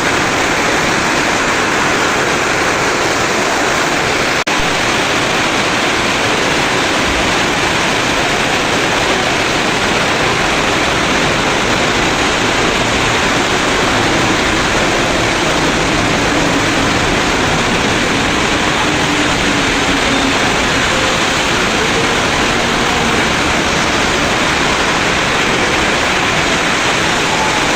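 Heavy monsoon rain pouring down in a windstorm: a loud, steady, unbroken rushing hiss.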